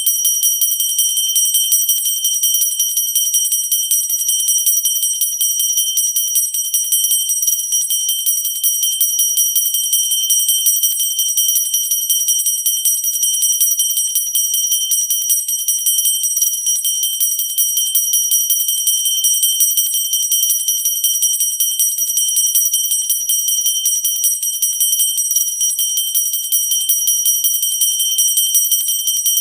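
Pooja bell rung rapidly and without pause, a steady, bright, high-pitched ringing.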